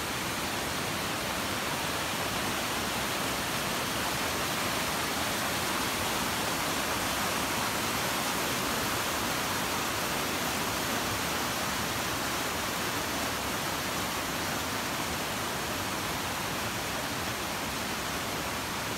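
Mountain river rushing over rocks in whitewater rapids: a steady, even rushing of water that does not change.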